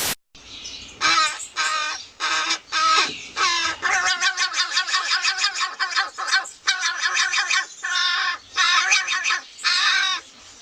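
A bird giving harsh, raspy calls over and over, in clusters with short breaks.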